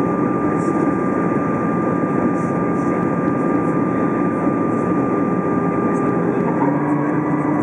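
Steady roar of jet engines and airflow heard inside the cabin of an Airbus A320 on approach with flaps extended. Near the end, a new steady lower hum joins in.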